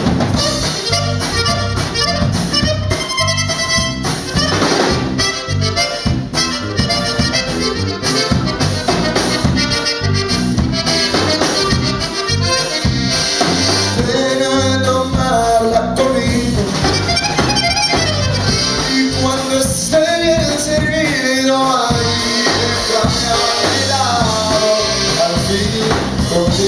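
Live Tejano band playing an instrumental break between verses, with accordion carrying the melody over bass and drums.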